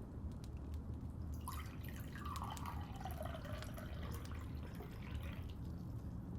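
Water poured into a drinking glass, starting about a second and a half in and lasting about four seconds, its pitch falling as the pour goes on.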